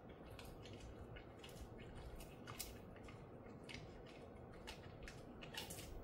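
A dog chewing a piece of horse meat treat: quiet, irregular crunching clicks of its teeth, about two a second.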